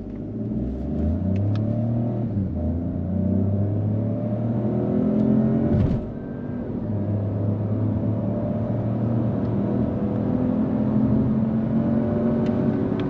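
Opel Mokka accelerating at full throttle from a standstill, heard from inside the cabin, its engine note in sport mode blended with the car's synthetic engine sound. The pitch climbs, breaks and drops at an upshift about six seconds in, then climbs again.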